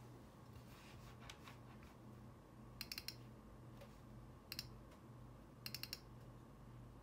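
Faint, sharp little clicks in three quick clusters (four, then two, then four) over a low steady hum.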